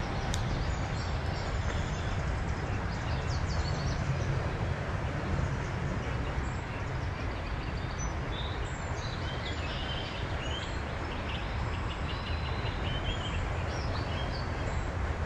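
Several birds chirping and singing at dawn over a steady low rumble of background noise.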